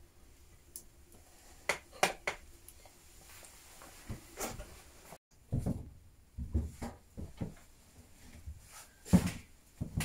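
A few sharp clinks of a clay lid and pot being handled on a wooden table, then, after a brief break, a run of dull knocks and thuds: footsteps on wooden floorboards and the pot being handled.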